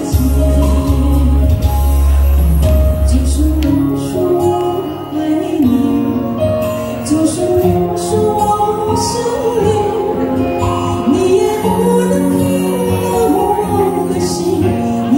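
A woman singing a Mandarin song into a microphone over a karaoke backing track. A strong low bass note in the accompaniment drops away about four seconds in.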